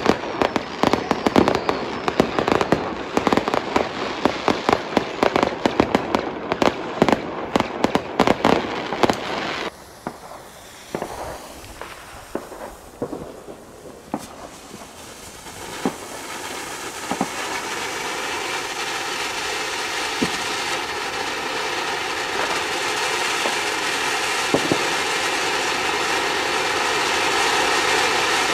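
New Year's Eve fireworks: many rockets and firecrackers banging and crackling at once for about ten seconds. Then come a few scattered distant pops. From about sixteen seconds a ground fountain firework spraying sparks gives a steady hiss that grows louder toward the end.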